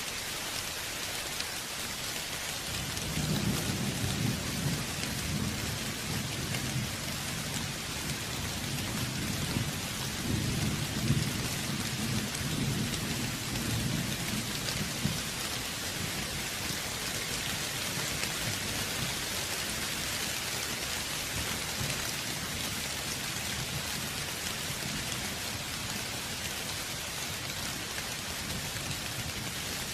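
Steady rain with a roll of thunder: a low rumble swells about three seconds in, peaks twice and dies away about halfway through, leaving the even hiss of rain.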